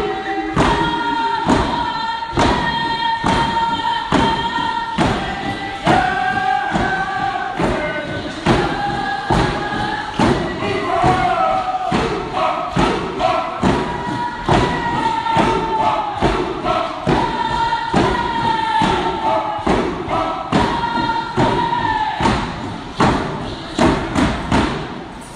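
Group of voices singing a traditional Northwest Coast song in unison over hand-held frame drums struck together on a steady beat, about one and a half strikes a second. Song and drums stop together near the end.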